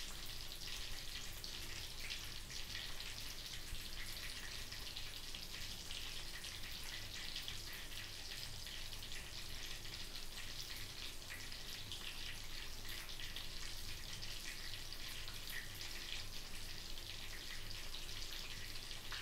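Breadcrumbed dory fillets shallow-frying in about an inch of sunflower oil at medium heat: a steady, fine crackling sizzle of bubbling oil.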